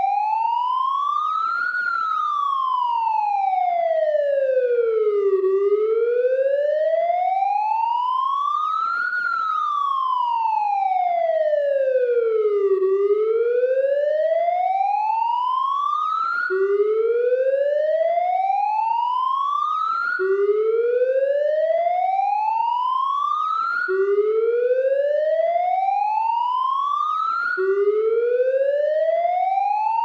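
Police car siren in a slow wail, rising and falling in pitch about every seven seconds. A little past halfway it changes to a rising sweep that drops back sharply and repeats every three to four seconds.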